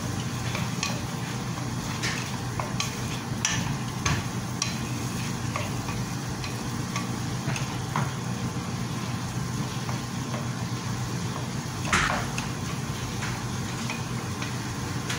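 Wooden spatula stirring and scraping sliced bottle gourd (opo) sautéing in a metal pan, with a light sizzle, scattered clicks and scrapes, and a louder knock about twelve seconds in. A low steady hum runs underneath.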